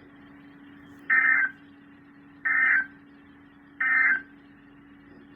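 Emergency Alert System SAME digital data bursts on NOAA Weather Radio: three short, identical warbling bursts about a second and a half apart, the end-of-message code that closes a warning broadcast. A faint steady hum sits underneath.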